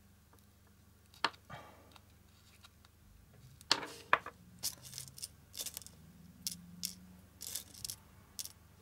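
Small handling sounds of metal dressmaker's pins and satin ribbon: one sharp click about a second in, then a run of short, sharp clicks and rustles from about four seconds in, as pins are picked up and pushed in.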